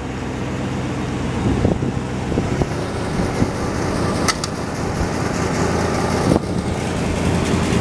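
Steady V8 idle from two parked Lincolns: the 1977 Continental Town Car's carbureted 460 V8 runs at high idle on the choke after a cold start, alongside an idling 2011 Town Car. A brief click sounds about four seconds in.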